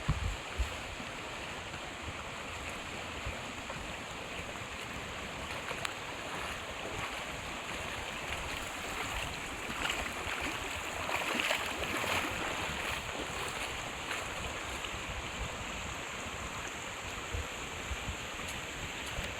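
Steady rushing of flowing water, swelling slightly about ten to twelve seconds in.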